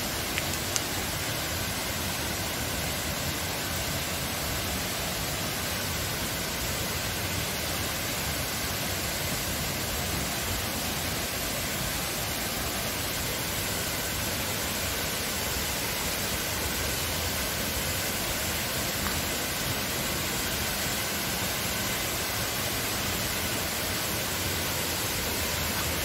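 Sendang Gila waterfall's water pouring down steadily: an even, unbroken rush of noise.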